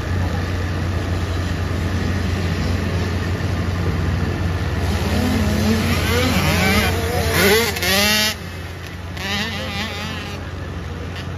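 110cc pit bike engines racing over a steady low hum; about halfway through, a bike's engine revs up and down in pitch, loudest just before it drops away suddenly.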